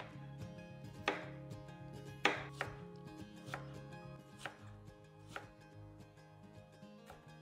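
Kitchen knife chopping vegetables, separate unhurried strokes about once a second, the strongest a little over two seconds in, growing fainter toward the end.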